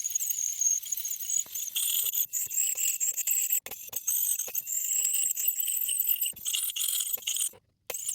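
High-pitched scratching and squeaking with scattered small clicks, typical of a tool working over a small bronze coin during cleaning; it cuts out abruptly twice.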